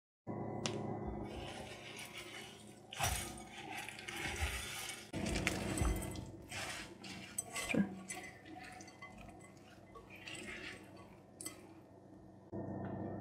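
A silicone spatula stirring rolled oats, chopped strawberries and banana with honey in a glass bowl: irregular wet scraping and rustling, with sharper knocks and clinks of the spatula against the glass now and then.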